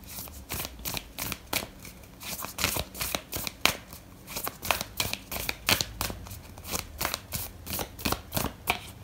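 A deck of oracle cards being shuffled by hand: a long run of quick, irregular card flicks, several a second.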